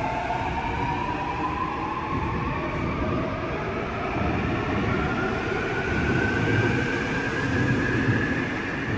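Seoul Subway Line 7 electric train pulling away from the station. Its traction-motor whine rises steadily in pitch as it speeds up, over the low rumble of the wheels.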